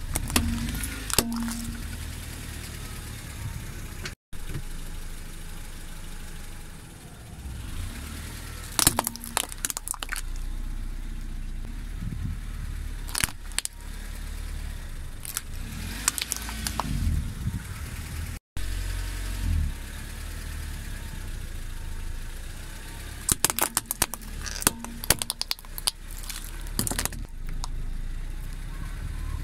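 Plastic LED tea-light candles cracking and snapping under a slowly rolling car tyre, in scattered sharp cracks with clusters of crackling, over the low steady hum of the car's engine idling.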